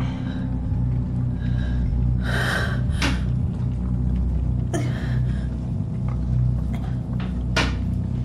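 A low, steady rumbling drone under a woman's sharp, ragged gasps for breath, four of them, about two, three, five and seven and a half seconds in.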